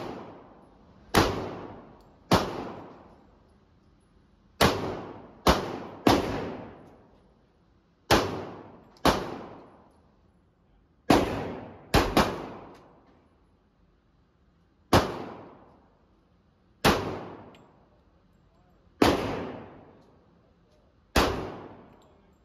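Glock pistol fired in single shots, about fourteen in all, spaced one to three seconds apart with two pairs fired in quick succession, each shot ringing out in the echo of an indoor range.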